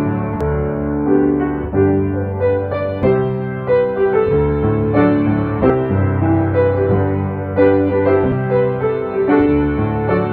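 Solo piano playing a slow, gentle piece, sustained chords with a quiet bass line under them.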